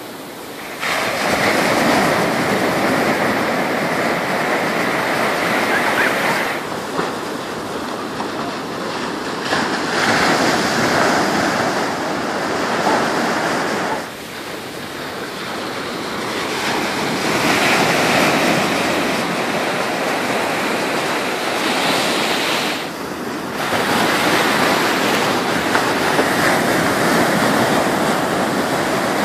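Ocean surf breaking on the beach: a continuous rush of waves and foam that swells and eases four times, each surge lasting several seconds.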